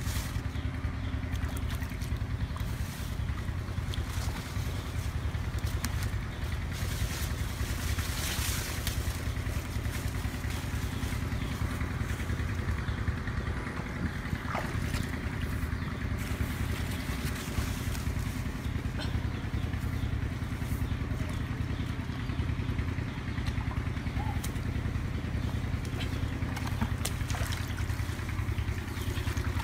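A small engine running steadily throughout, a continuous low hum at an even pitch, with a few faint clicks over it.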